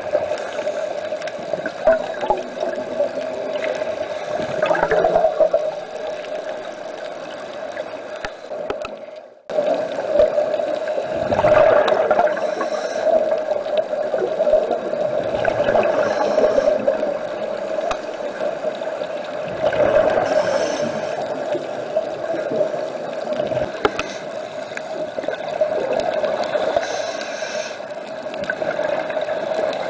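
Muffled underwater sound heard through a camera housing: a steady hum under a wash of water noise, with gurgling surges of scuba regulator exhaust bubbles every few seconds. The sound cuts out for a moment about nine seconds in.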